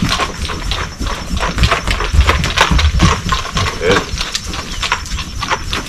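Hoofbeats of a young colt running around a training circle on soft ground: a quick, irregular run of dull strikes.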